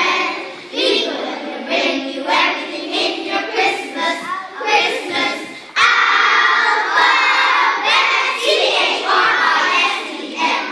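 A group of young children singing together, getting suddenly louder a little before six seconds in.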